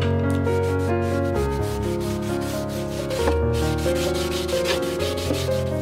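Background instrumental music with a bass line and a quick, steady beat.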